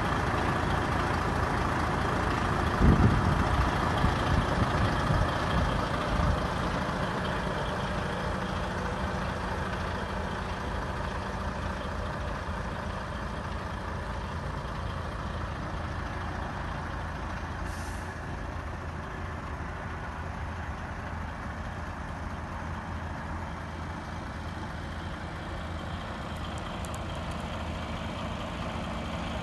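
DAF XF105.510 tractor unit's 12.9-litre straight-six diesel idling steadily, briefly louder about three seconds in and a little quieter after that.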